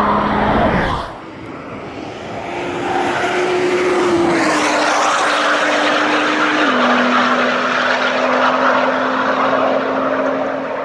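Nissan GT-R NISMO's twin-turbo V6 at speed on a racetrack. A loud pass cuts off suddenly about a second in, then the engine approaches and grows louder, its note holding steady and stepping down in pitch twice.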